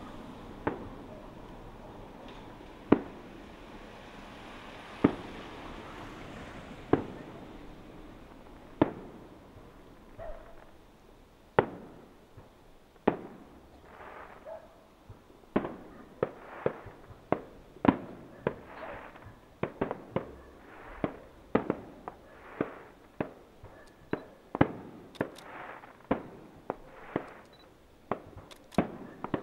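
Aerial fireworks display: shells bursting in sharp bangs, about one every two seconds at first, then coming faster, more than one a second, in the second half.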